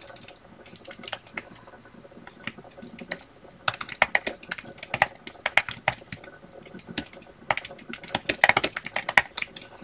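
Typing on a computer keyboard: a few scattered key clicks at first, then quicker runs of keystrokes from a few seconds in.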